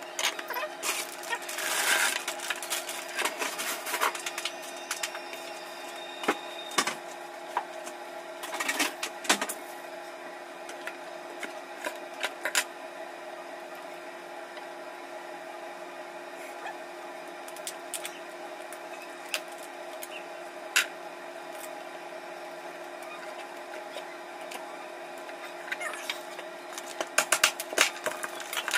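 Cooked crab shells being cracked and pulled apart by hand, with clicks of a knife and shell pieces on the counter. The sharp cracking and clatter comes in bursts near the start, around nine seconds in and near the end, over a steady hum.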